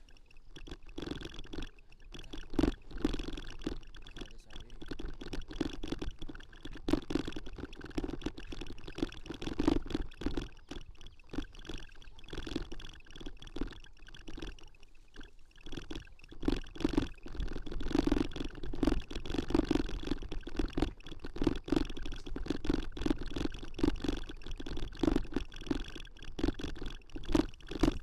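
Bicycle rattling and knocking as it is ridden over a rough dirt trail, with many irregular sharp knocks. From about halfway there is a low thumping about twice a second.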